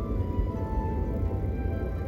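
Background music: held notes stepping through a slow melody over a low rumble.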